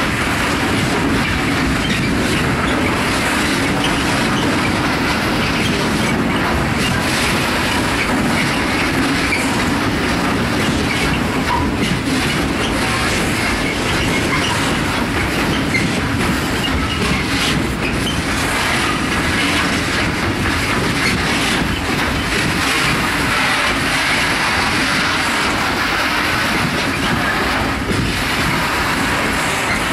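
Freight train of covered silo tank wagons rolling steadily past: continuous wheel-on-rail noise with irregular clicks.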